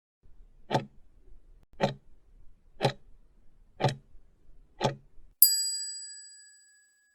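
Countdown-timer sound effect: five clock ticks about a second apart, then a bright bell ding that rings out and fades. It marks the end of the time given to answer a quiz question.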